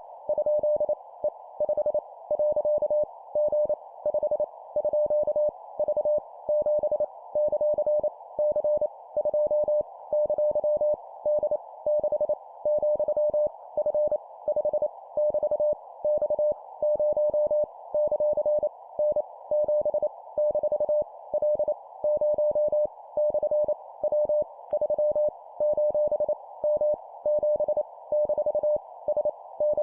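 Morse code at 25 words per minute: a steady mid-pitched tone keyed on and off in quick dots and dashes, spelling random letters, numbers and punctuation, over a constant hiss.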